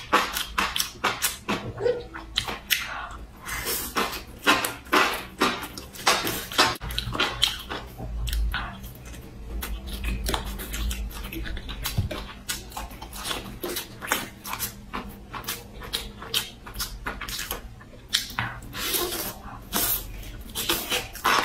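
Close-miked wet chewing and slurping of enoki mushrooms: a dense run of quick smacking, squelching mouth clicks, several a second.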